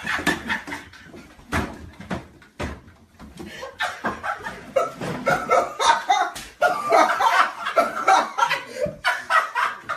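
A group of people laughing hard together, the laughter building and filling most of the second half, with a few sharp smacks among it.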